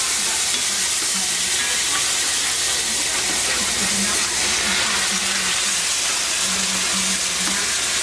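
Hot cast-iron skillet of browned gravy base sizzling with a loud, steady hiss while it is stirred, with steam coming off the pan.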